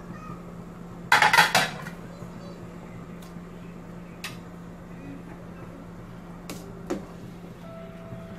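Kitchen utensils clattering against a stainless-steel cooking pot: a quick loud run of metallic clinks about a second in, then a few single taps later on, over a steady low hum.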